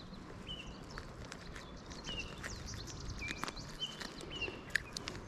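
A bird calling in short, slightly falling chirps, repeated about eight times at uneven spacing, over faint outdoor background noise. Scattered sharp clicks and taps come through as well.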